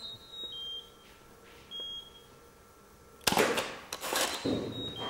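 Studio flash heads beeping their recycle-ready signal: short high beeps, two just after the start, one about two seconds in and another near the end. About three seconds in, the camera and flash fire in a loud, sharp burst, then again a moment later.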